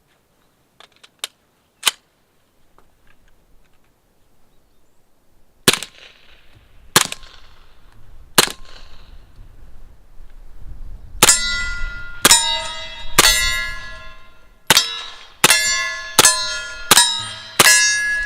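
Suppressed 9mm CZ Scorpion Evo pistol firing subsonic rounds through a Dead Air Ghost M silencer. Three separate shots about a second and a half apart come first, then eight quicker shots, each followed by the ringing clang of a steel target being hit.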